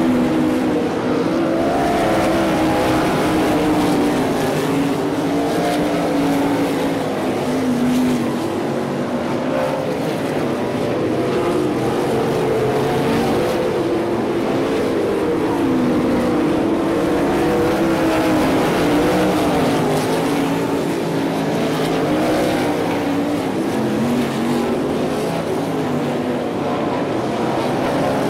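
A pack of 305 Racesaver winged sprint cars racing, several 305-cubic-inch V8 engines running hard at once, their pitches rising and falling in overlapping waves as the cars lap.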